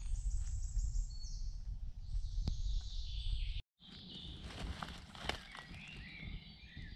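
Footsteps through leaf litter on a forest floor, with birds singing. The sound cuts out abruptly a little past halfway, and after it birdsong goes on over faint rustling.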